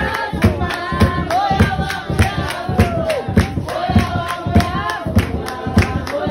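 A group of voices singing together over a steady drumbeat.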